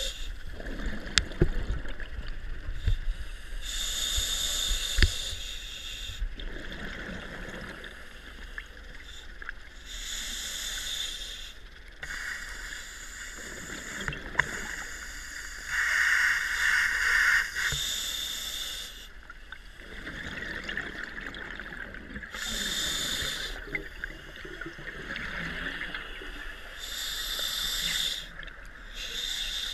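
Scuba diver breathing underwater through a regulator: a hissing breath and a bubbling exhalation repeat every few seconds, with a few light clicks in the first seconds.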